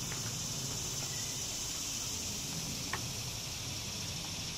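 Steady high-pitched drone of insects, with a low hum underneath and one light click about three seconds in.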